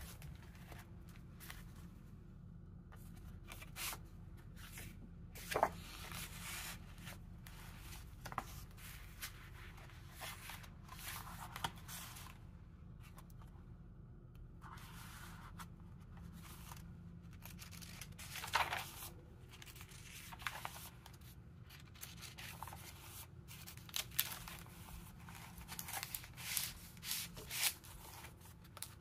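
Paper and card rustling as a handmade junk journal is handled: the twine tie undone, pages flipped and paper tags slid out of pockets. Scattered short rustles and flaps at irregular intervals, a few louder ones, over a faint steady low hum.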